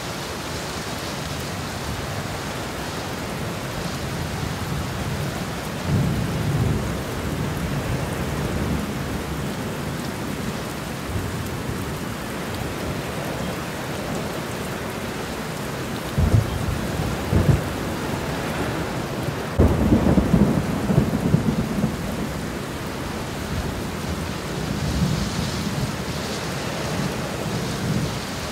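Heavy rain falling steadily, with several bursts of low rumbling, the loudest about twenty seconds in.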